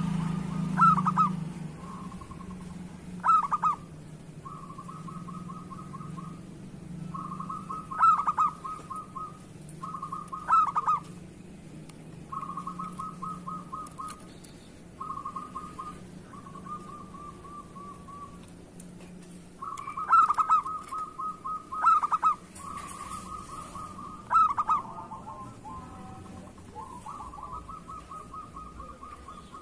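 Zebra dove (perkutut) cooing again and again at one pitch: loud accented coo notes mixed with stretches of soft, rapid rattling trills.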